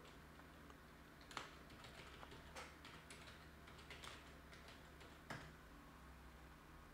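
Faint typing on a computer keyboard: scattered key clicks at an uneven pace, with a slightly louder keystroke about five seconds in.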